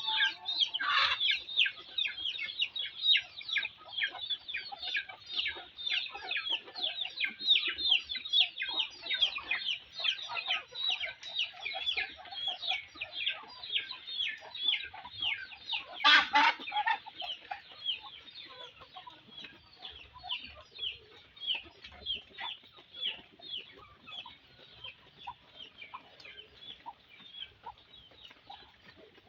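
Chickens calling steadily in a pen: a dense string of short, high, falling calls, a few each second, with a louder call about a second in and another about sixteen seconds in. The calls grow fainter over the second half.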